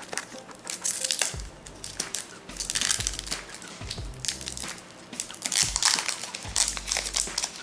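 Foil trading-card pack wrapper crinkling in the hands and being torn open, in several bursts of crackle.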